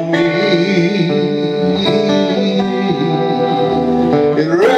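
Two acoustic guitars playing a slow folk song, with long held notes and a note sliding upward near the end.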